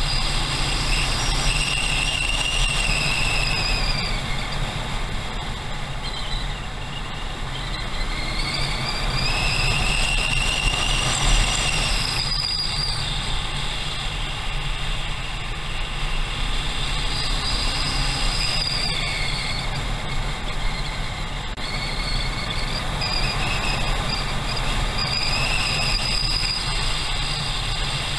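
Motorcycle on the move, its engine and wind giving a steady low rumble on the bike-mounted camera, with a high whine that rises and falls several times.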